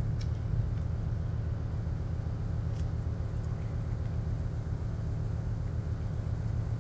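A steady low motor rumble, with a few faint clicks near the start and around the middle.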